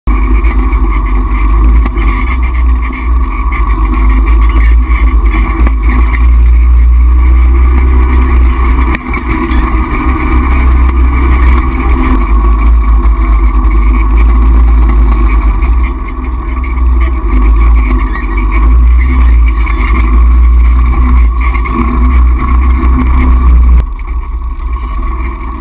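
Four-wheeler (ATV) engine running steadily as it rides along a bumpy dirt trail, with a heavy low rumble throughout. Near the end the sound drops in level as the engine eases off.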